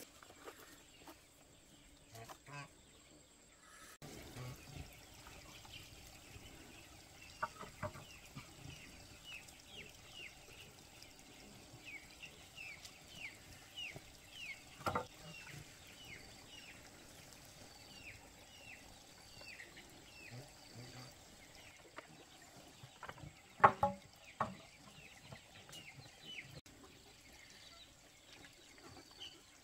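Birds chirping: a long string of short, falling chirps, a chirp or two a second, over a quiet outdoor background. A few sharp knocks break in, the loudest about three-quarters of the way through.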